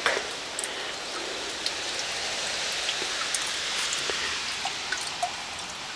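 Steady rain falling, an even hiss with scattered drops ticking close by.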